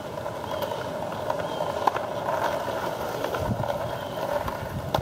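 Skateboard wheels rolling on a concrete street, a steady rolling hiss that grows louder as the board nears, with a few sharp clicks along the way.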